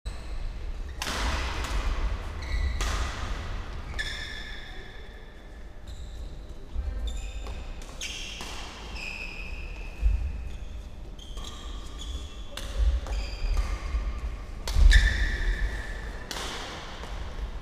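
Badminton play in a large sports hall: sharp racket hits on shuttlecocks ringing in the hall, mixed with short high squeaks of court shoes on the floor.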